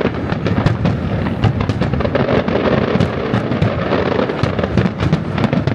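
Aerial firework shells bursting in quick succession: a dense run of bangs and crackles, several a second, over a constant low rumble.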